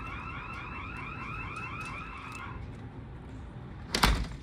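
Security alarm siren in the attic sounding a fast warbling yelp, its pitch sweeping several times a second for about two and a half seconds before it stops. About four seconds in there is one sharp, loud knock.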